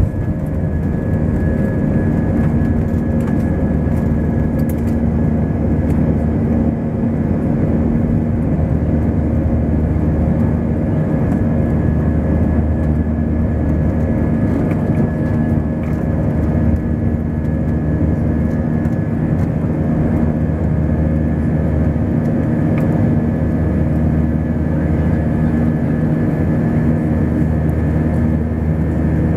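Airbus A320 airliner heard from inside the passenger cabin: jet engines running steadily under power, a dense rushing roar with a constant hum of several steady tones.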